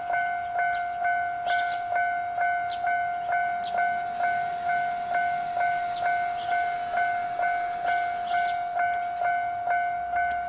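Japanese railway level crossing warning bell ringing steadily: the same single-pitched ding repeated evenly, about two and a half times a second.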